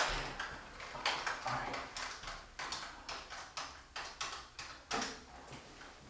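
Telephone keypad buttons being pressed one after another to dial a number: a run of short clicks, about three or four a second.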